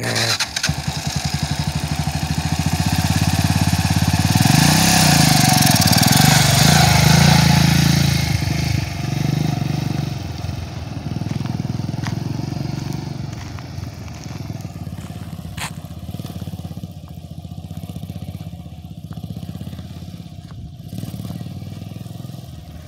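Yamaha dirt bike's engine running as the bike pulls away, revving up and down and loudest a few seconds in, then fading steadily as it rides off into the distance.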